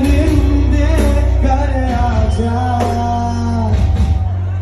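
Live music played loud through a PA sound system: a singer holding long notes over a heavy, steady bass.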